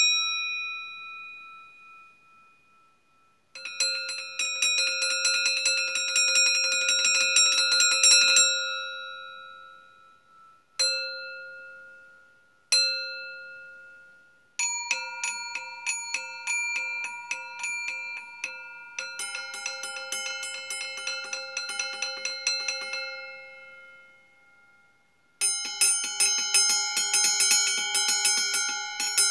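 Stainless steel bowls struck in quick rolls, ringing with clear bell-like tones that die away after each roll. There are two single strikes near the middle, and a lower-pitched bowl sounds in the later rolls.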